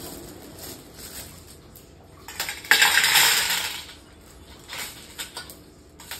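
Small hard objects clinking and rattling as things are handled on a tabletop. A loud rattling, rustling burst runs from about two and a half to four seconds in, with a few short clicks after it.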